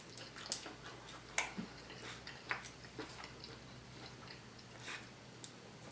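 Close-up chewing of steak, with faint wet clicks and smacks from the mouth, most of them in the first few seconds, then quieter.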